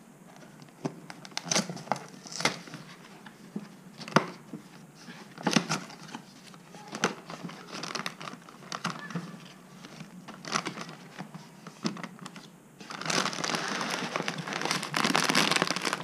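A cardboard cereal box being torn open by hand: sharp cardboard clicks and rips as the glued top flaps come apart. Near the end, the foil-like inner bag crinkles continuously as it is handled.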